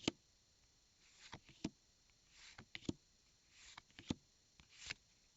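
Pokemon trading cards handled one by one: each a soft swish of card sliding on card, then a sharp tap, repeating about every second and a quarter, five times.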